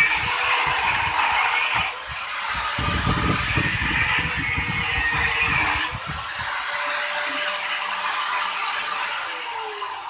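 Angle grinder with a cutting wheel cutting through the steel shell of a refrigerator compressor: a high motor whine over the grinding noise of the wheel in the metal. The whine rises each time the wheel comes free, at about two and six seconds in. The cutting stops around six and a half seconds, and near the end the grinder is switched off and its whine falls as it winds down.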